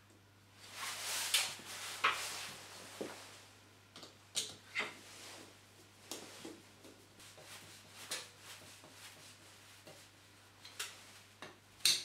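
Hand screwdriver driving a screw to fix a plastic PIR sensor base to a wall: scraping and rubbing, then scattered clicks and knocks of plastic and tool, the sharpest click near the end.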